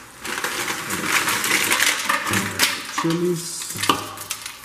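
Fresh garlic going into a large metal stockpot of seared beef and onions: a run of clattering and rattling as the cloves hit the pot, with a couple of sharper clinks near the end.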